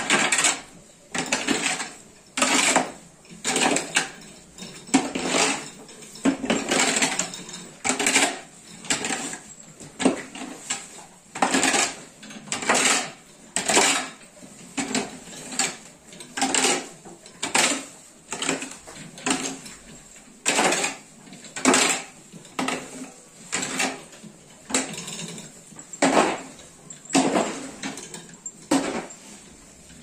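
A long-handled barn scraper scraping manure and straw across a concrete floor, in sharp, rhythmic strokes about once a second.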